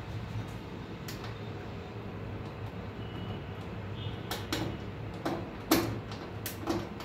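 Hands working the wires and plastic terminals of a newly fitted control transformer in an elevator control panel: a run of sharp clicks and knocks starting about halfway through, the loudest a little before the end, over a low steady hum.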